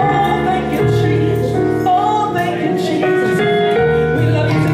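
Gospel worship song: women's voices singing into microphones over instrumental accompaniment, with long held notes.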